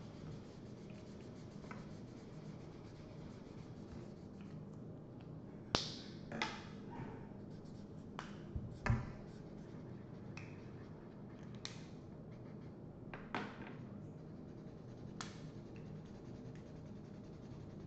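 Felt-tip markers scratching on paper, broken by several sharp clicks of marker caps being snapped on and off; the loudest clicks come about six and nine seconds in.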